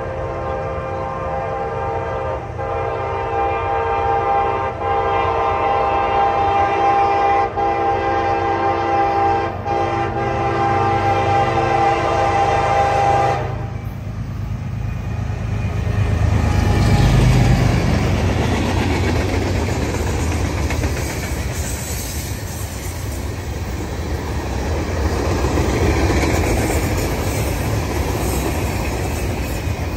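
CSX GE ES40DC diesel locomotive sounding its multi-note horn for a grade crossing, a long chord held for about thirteen seconds with a few brief breaks, then cutting off. The locomotive then rumbles past, followed by freight cars rolling by with steady wheel clatter on the rails.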